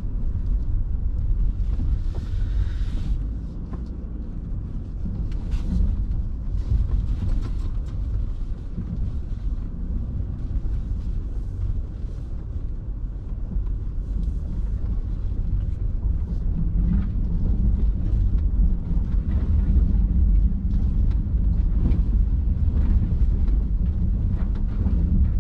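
Honda Ridgeline pickup truck driving: a steady low rumble with scattered knocks and rattles.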